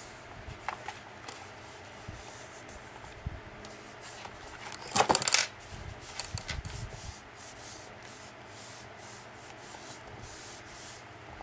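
Paper and cardstock rustling and rubbing as the pages of a handmade paper journal are handled and pressed flat, with scattered small clicks and a brief loud crackle about five seconds in.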